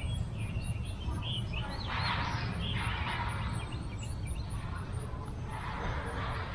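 Birds chirping in short high calls over a steady low rumble, with a few patches of hiss in between.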